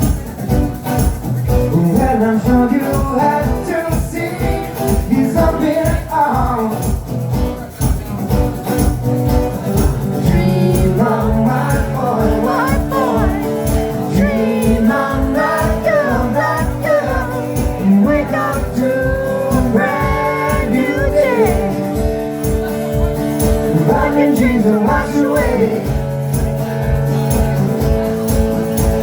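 Live band playing a song over a steady, driving drum beat, with sustained chords and, from about a third of the way in, a gliding, bending lead melody above them.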